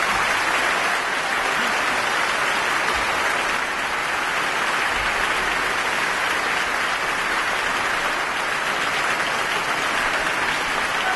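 Concert audience applauding steadily after the song ends.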